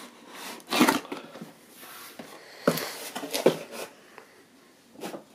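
Cardboard packaging being handled: the outer carton is slid off the display box and set down, with scraping rustles and a few sharp knocks on the wooden table. The loudest scrape comes about a second in.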